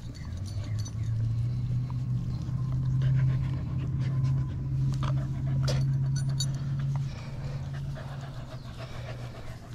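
Dogs panting as they play and mouth at each other, with a few sharp clicks. Under them a steady low hum swells about half a second in and eases off around seven seconds.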